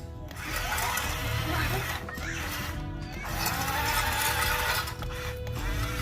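Background music with a steady low beat and a gliding melodic line.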